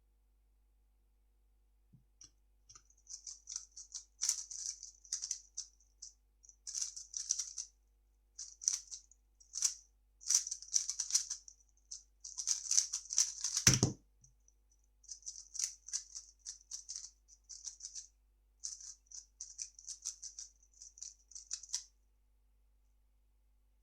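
A 3x3 speedcube being turned fast during a solve: bursts of quick plastic clicking and rattling, broken by short pauses. A single dull thump comes about halfway through.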